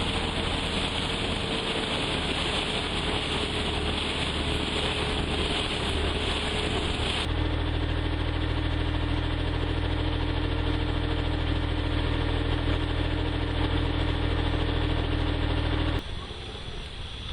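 An engine running steadily at an even speed with a low hum. The sound shifts abruptly twice, about seven seconds in and again near the end, getting quieter at the second change.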